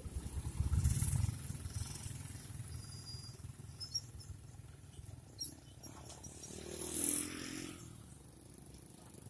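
Several small motorcycles and scooters pull away from a standstill and ride across a railway level crossing, their engines revving with a pulsing low rumble, loudest at the start. One passes close and louder about seven seconds in. A short high beep sounds about three seconds in.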